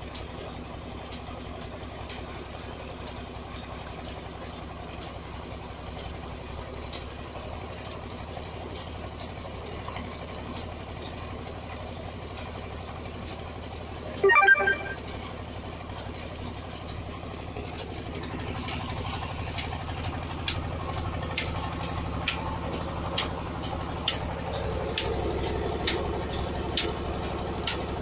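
Petter diesel tubewell engine running steadily, with the pumped water gushing from the discharge pipe into the tank. About halfway through there is a brief loud pitched chirping. From about two-thirds on the running gets louder and sharp clicks come about once a second.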